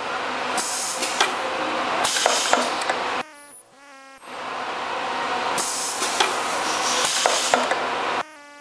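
Ultrasonic tube sealing machine cycling: long stretches of loud hissing noise with sharp clicks and knocks. About three seconds in, and again near the end, the hiss cuts out for about a second, leaving a quieter buzzing hum.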